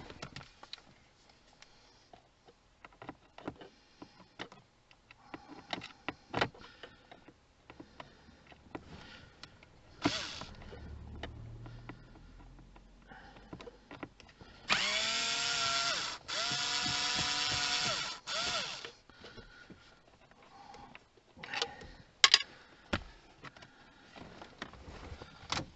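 Small electric screwdriver running in three bursts over about four seconds, among scattered clicks and knocks of plastic interior trim being handled.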